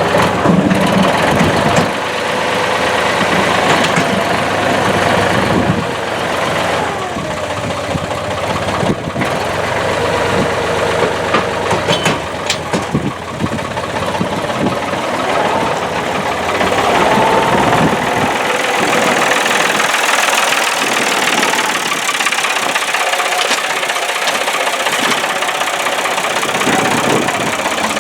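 Case tractor engine running with its pitch rising and falling as it works the loader scoop.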